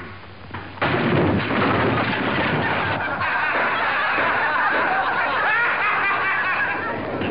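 A crowd of many people laughing together, starting abruptly about a second in.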